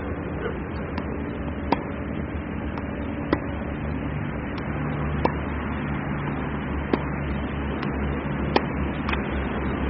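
Tennis ball struck with a racket in a forehand rally: five sharp pops about every second and a half to two seconds, with fainter clicks between them, over a steady low rumble.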